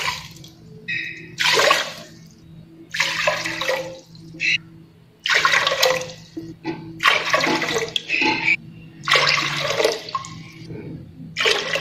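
Cupfuls of water poured one after another into a pressure cooker pot onto sugar: six separate splashing pours, each under a second, about every one and a half to two seconds.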